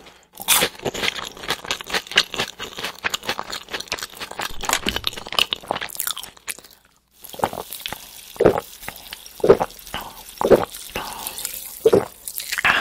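Close-up crunchy chewing of fried potato bites. After a brief pause about seven seconds in, four gulps about a second apart from a can of sparkling water, over a faint fizz.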